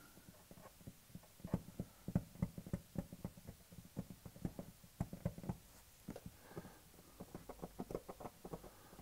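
Faint, irregular scratching and small ticks of fingers working at plastic badge letters on a car's tailgate, prying them loose from their adhesive; the ticks come a little faster near the end.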